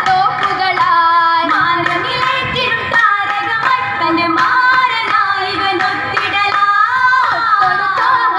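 Female voices singing a Mappila song in Oppana style, with steady rhythmic hand claps keeping the beat.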